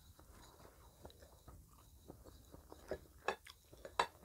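Close-miked chewing and small mouth clicks of someone eating meatballs. A few sharp clicks come near the end as a wooden spoon scoops rice against a ceramic bowl.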